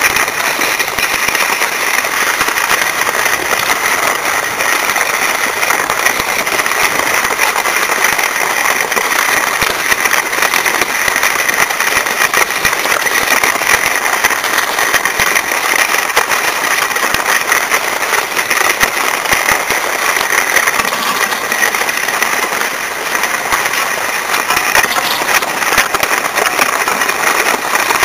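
Steady scraping hiss of skis sliding over groomed snow while being towed uphill on a drag lift.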